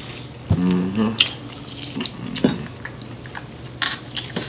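Eating at a table: scattered small clicks and light clatter of chewing and handling chicken wings and their container, with a short voiced murmur about half a second in.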